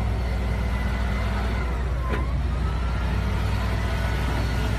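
Heavy machine's engine running steadily with a deep rumble, thin high whines above it, and a single sharp knock about two seconds in.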